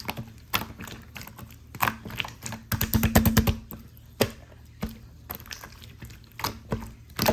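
Pink pearl slime being squeezed and pressed by hand, making scattered sharp clicks and pops, with a quick run of clicks about three seconds in.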